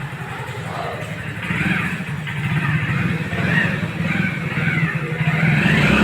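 A small motorcycle engine running steadily, with indistinct voices in the background.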